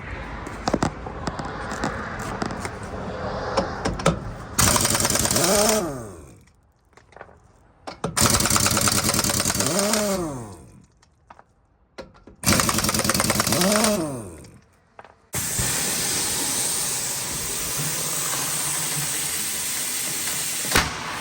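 Impact wrench running on the truck's wheel lug nuts in three bursts of about two seconds each, rattling fast and ending with its pitch rising then falling away, then a longer steady run from about fifteen seconds in.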